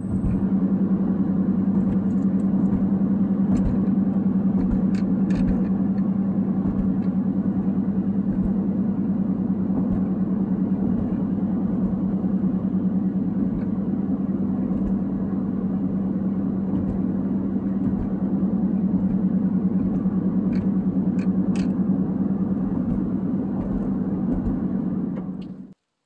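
Steady drone of a vehicle driving on a paved road, heard from inside the cab: constant road and engine hum with a few faint ticks, cutting off suddenly near the end.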